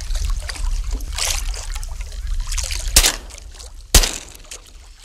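Wind and choppy water on open water, then two sharp shotgun shots about a second apart, the second one louder, as birds are fired on over the decoys.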